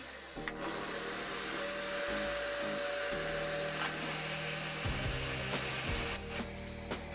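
Angle grinder with a sanding disc running at full speed: a steady high whine and hiss. A few handling knocks come near the end.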